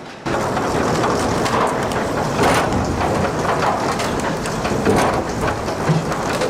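Sawmill machinery running loud: a steady mechanical din with a dense, irregular clatter of knocks, as logs and lumber move on the conveyors and through the saw line. It cuts in abruptly just after the start.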